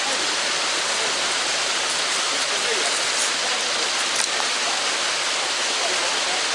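Continuous, even hiss of water, rain or rushing water, with faint voices under it.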